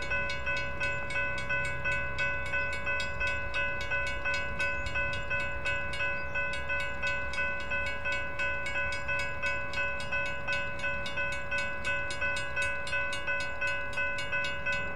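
Railroad crossing signal bells ringing steadily in rapid, even strikes, about three a second: the crossing's GS Type 3 electronic bell and WRRS mechanical bell. A low rumble runs underneath.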